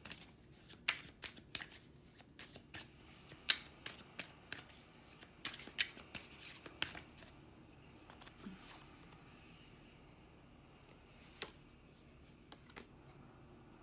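A deck of oracle cards being shuffled by hand: a run of quick, irregular card clicks and slaps for about seven seconds, thinning to a few scattered clicks, with one sharper click near the end.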